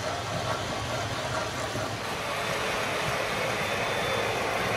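O gauge CSX Dash 8 model diesel locomotive's onboard sound system playing a steady diesel engine rumble while model freight cars roll along the track. The sound grows a little louder about halfway through.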